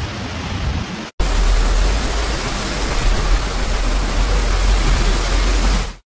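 Heavy floodwater rushing: a steady loud rush of muddy water pouring down a hillside waterfall. About a second in, it breaks off for an instant and comes back louder, with a deep rumble underneath.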